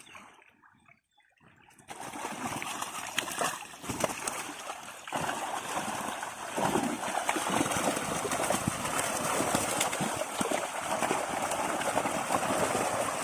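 Water splashing and churning as a fishing net is worked in the water. It starts about two seconds in as a busy, uneven patter of splashes and grows louder about five seconds in.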